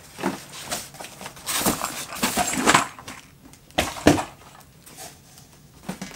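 Cardboard box and polystyrene foam packing scraping and rustling as a sewing machine is pulled out of its carton, with plastic wrap crinkling. There are two sharp knocks about four seconds in, the second the loudest sound.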